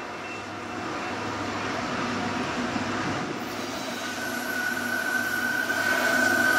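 Norfolk Southern freight train approaching behind its diesel locomotives: engine and rail noise growing steadily louder as it nears. A steady high-pitched tone joins about four seconds in.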